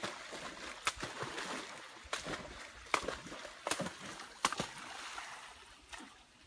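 Water splashing and sloshing, with about five sharp slaps roughly a second apart; the splashing dies away near the end.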